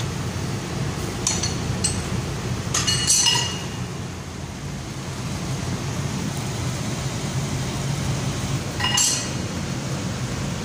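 Pipe wrench and steel tools clinking against steel pipe fittings and flange bolts. There are a few sharp clinks, the loudest cluster about three seconds in and another near nine seconds, over a steady low machinery hum.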